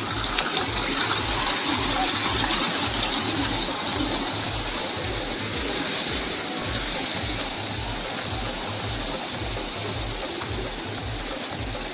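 Steady rush of flowing water, with background music carrying an even, repeating bass beat throughout.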